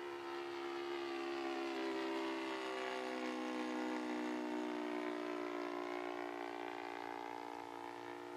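Saito FG-20 20cc four-stroke gasoline engine on an RC Cessna 182 model in flight, a steady drone that gets louder, drops in pitch about three seconds in, then fades slightly.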